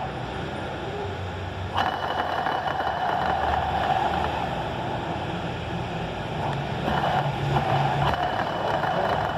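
Worn camshaft ball bearing on a Honda CG 160 cylinder head spun by hand, giving a rough whirring that starts afresh about two seconds in and again around seven seconds, over steady street traffic. The noise comes from excessive play in the bearing.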